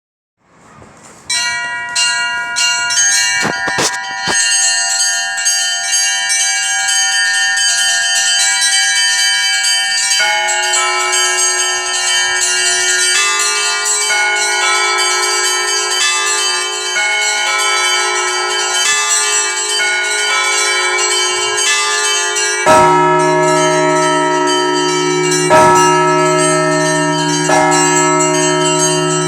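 Russian Orthodox festive Easter bell ringing in a church bell tower. Small treble bells chime quickly. Medium bells join about a third of the way in, and a large deep bell is struck about three times near the end.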